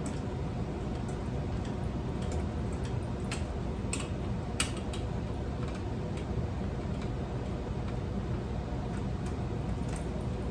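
Irregular light clicks and taps from working a ceiling fan's parts and screws apart, with one sharper click about halfway through, over a steady low hum.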